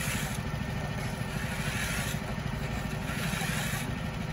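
An engine running steadily throughout, with shovels and a rake scraping over fresh asphalt in several long strokes.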